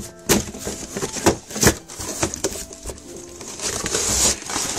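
Cardboard toy box being handled: a series of knocks and taps on the box, then a longer scrape about a second before the end as the packaging tray slides out of the box.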